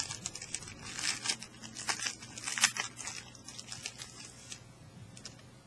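Clear plastic wrapping being picked at, torn open and crinkled off a paperback notebook: a run of irregular crackles and sharp clicks that stop about four and a half seconds in.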